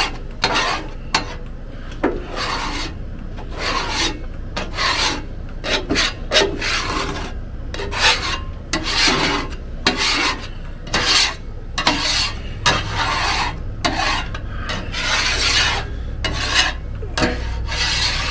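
Hand griddle scraper rasping across the unheated steel cooktop of a Blackstone 22-inch griddle in repeated strokes, about one a second, pushing off stuck-on scrambled egg.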